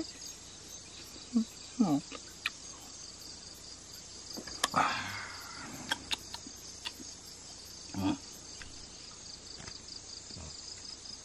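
Crickets chirping steadily in a fast, even pulse, with a few short vocal sounds, light clicks and a brief rustling noise about five seconds in close by.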